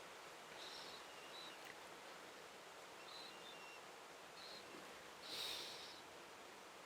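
Near silence: faint steady hiss, with a few faint, short high chirps and a brief soft rustle about five and a half seconds in.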